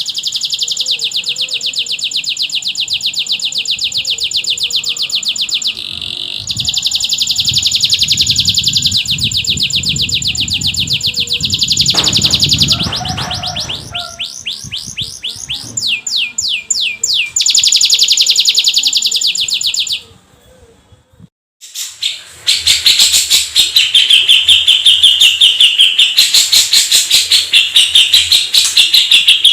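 Domestic canary song: long, very rapid rolling trills, high-pitched and continuous. It breaks off about two-thirds of the way through and resumes a moment later as a louder, more varied run of fast trills.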